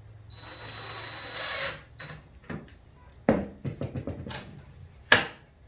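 Cordless drill driving a hinge screw into a pine cabinet door frame: a steady motor whir that builds for about a second and a half and then stops. It is followed by a run of clicks and knocks as the drill and door are handled, with a sharp knock near the end.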